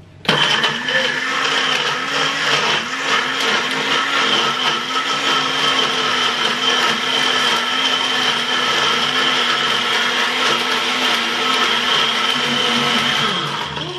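Nutribullet Pro 900 series blender running at full speed while its cup is pressed down onto the motor base, blending a smoothie of fruit, ice and milk. It starts suddenly and cuts out near the end.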